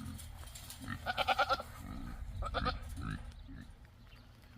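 Goat bleating twice, a longer quavering bleat about a second in and a shorter one a little later.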